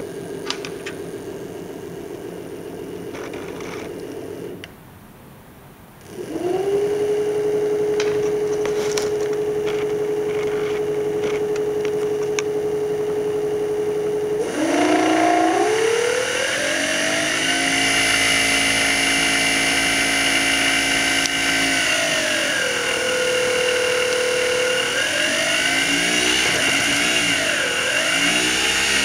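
Small outer-rotor brushless DC motor driven by a Hall-sensor controller, whining as it spins. It cuts out about five seconds in, starts again with a rising pitch and holds steady, then speeds up about halfway, slows for a while, speeds up again and swings up and down in pitch near the end as the speed control is turned.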